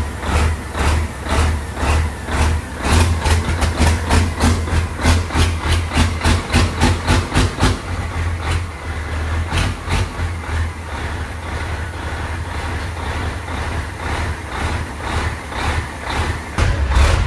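Caterpillar diesel truck engine running with an even, pulsing beat of about three pulses a second. It settles somewhat in the middle and grows louder again near the end.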